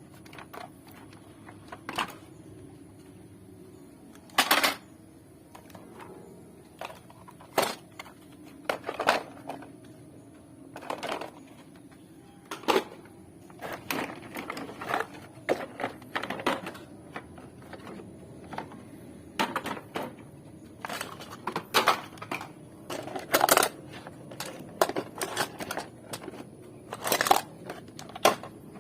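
Plastic toy trucks and construction vehicles being handled, giving irregular sharp clicks and knocks, some louder, at uneven intervals throughout.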